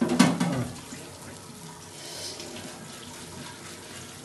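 Steady hiss of a lit gas stove burner under a pan of hareesa, with a brief louder sound right at the start.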